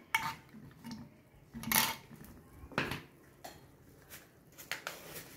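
Steel spoon stirring oats into milk in a steel pot, scraping and clinking against the pot in irregular strokes, the loudest clinks about two and three seconds in.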